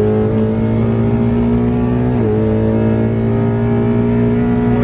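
Ford Mustang GT's 5.0 L V8 engine under way, heard from inside the cabin. Its pitch climbs slowly, drops suddenly about two seconds in, then holds steady.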